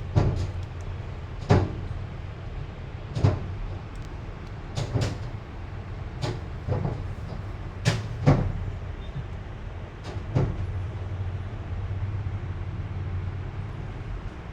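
A steady low rumble with about ten sharp, irregular knocks or bangs scattered through it, the loudest about eight seconds in.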